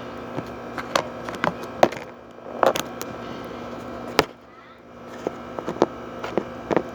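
Sticky glue-and-detergent slime being kneaded by hand in a bowl, giving irregular sticky clicks and pops, over a steady hum.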